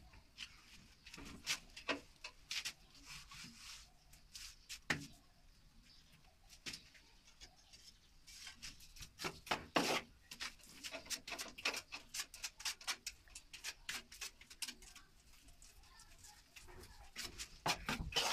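Ceramic wall tiles being pressed and tapped into a mortar bed, giving irregular light clicks, taps and scrapes.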